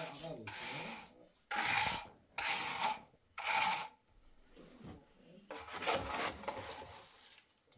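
Steel trowel scraping and smoothing wet cement mortar along a concrete door sill, in separate strokes: four strong strokes in the first four seconds, then a longer, rougher scrape about six seconds in.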